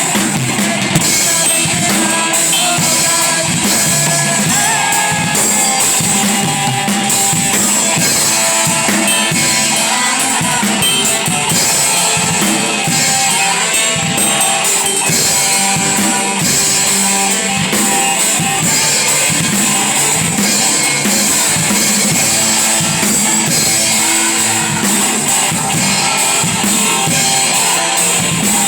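Band music with drum kit and guitar, loud and steady throughout.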